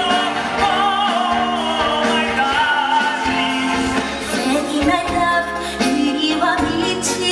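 Musical-theatre singing with band accompaniment, with long held notes sung with vibrato. A little after the middle the music cuts to a different number.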